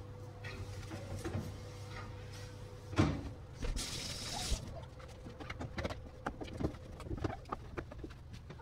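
Hinged glass front panel of an Akpo range hood being shut with a sharp knock about three seconds in, followed by a brief hiss and then light taps and rubbing as a cloth and hand work over the glass, over a steady low hum.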